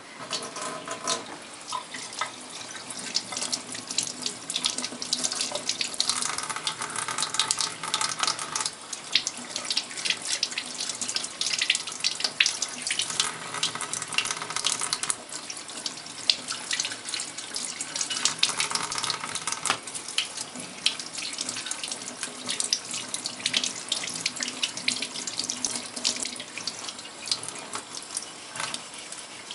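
Kitchen tap running into a stainless steel sink, coming on at the start, with water splashing as a green pepper and a cucumber are rubbed and rinsed under the stream.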